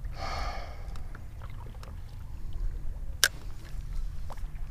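Steady low rumble of water and wind noise around a fishing kayak. A brief vocal sound comes at the start, and there is one sharp click about three seconds in.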